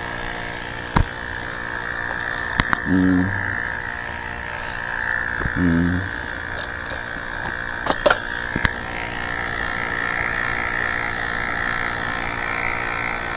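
A man groaning twice, short wordless voiced sounds, with a few sharp clicks in between, over a steady high-pitched hum.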